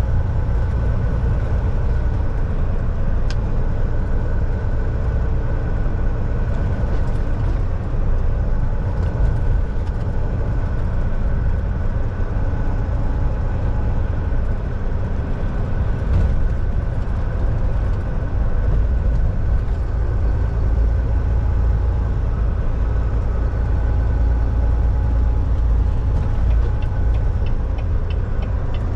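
Volvo semi truck driving, a steady low engine and road rumble with no change in pace.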